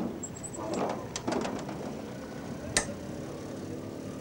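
A few light knocks and one sharp metallic click near the middle, the sound of a man working the catch of an old car's side-opening bonnet.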